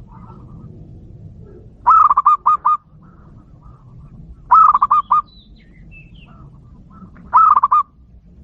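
Zebra dove (perkutut) cooing: three short phrases of quick repeated coo notes, roughly two and a half seconds apart. Faint higher chirps from another bird sound between the phrases.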